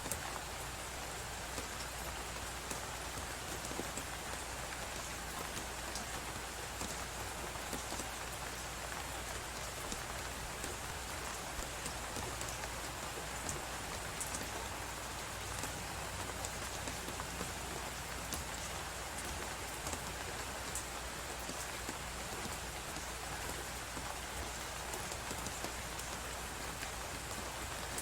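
Crackling wood fire, many small sharp pops and crackles scattered all through, over a steady hiss of blizzard wind.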